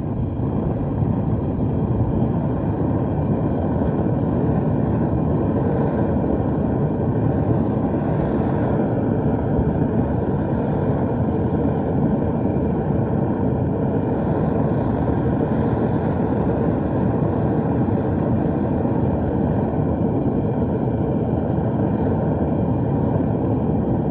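Gas-fired metal-melting furnace burner running steadily, a constant low rushing noise with no change in level.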